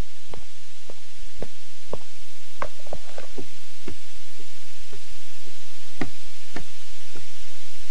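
A series of short, sharp knocks or taps, unevenly spaced at roughly two a second, over a faint steady low hum.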